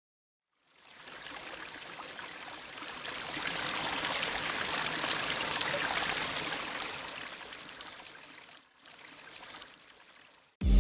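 A rushing, hiss-like noise that swells over a few seconds and then fades away, with no clear pitch or rhythm. Loud dance music starts abruptly at the very end.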